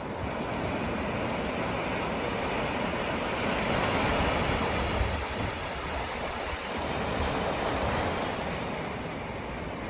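Ocean waves rolling in and breaking, a continuous rushing surf that swells louder about four seconds in and again near eight seconds.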